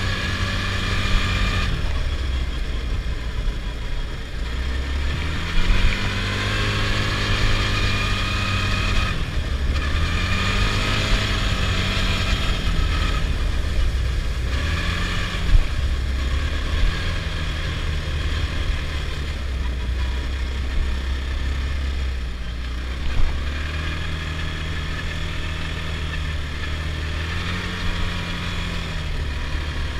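Adly Hurricane 320 quad's engine running under way, its pitch rising and falling again and again as the throttle is opened and closed, over a steady low rumble. A few short knocks stand out, one near 6 s, one near 15 s and one near 23 s.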